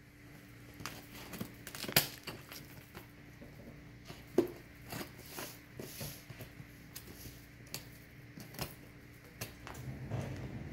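Scissors snipping and cutting through plastic packing tape on a taped-up cardboard box, with the tape crinkling and tearing and a run of irregular sharp clicks. The loudest snaps come about two seconds in and again around four and a half seconds.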